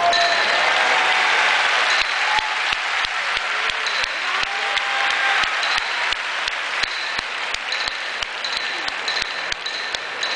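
A large arena crowd applauding, strongest at first and slowly thinning out. From about two seconds in, a steady run of sharp clicks about three a second sounds over it.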